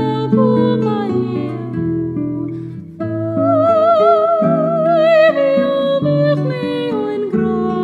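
Music: a Brazilian art song with a plucked-string accompaniment, where a voice holds one long note with vibrato about halfway through before the melody steps down.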